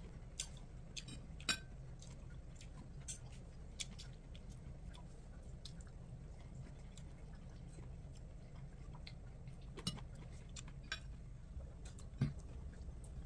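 A metal fork clinking and scraping now and then against a ceramic bowl and plate, with quiet chewing between, over a low steady hum. The sharpest clinks come about a second and a half in and near the end.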